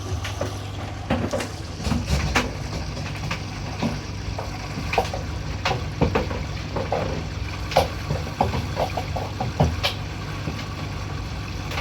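Hoover washing machine running with a steady low hum, with irregular knocks and clicks throughout.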